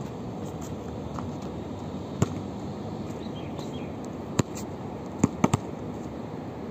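Basketball being dribbled on an outdoor court: single sharp thuds a second or two apart, then a quick run of three about five seconds in, over steady background noise.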